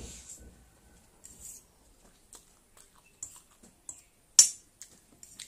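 Close-up eating sounds: noodles being chewed, with scattered short clicks of a metal fork against a stainless steel plate. The loudest is a single sharp click about four and a half seconds in.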